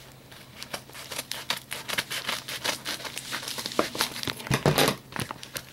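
Packaging being opened by hand: a rapid run of crinkling, rustling and tearing, with a louder rustle near the end.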